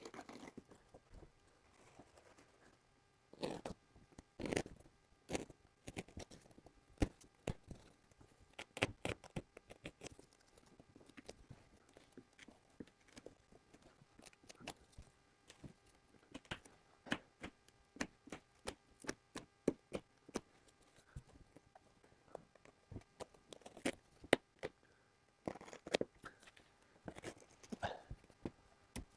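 Headliner fabric and backing being cut out by hand around the dome-light opening: an irregular run of short, sharp cutting sounds.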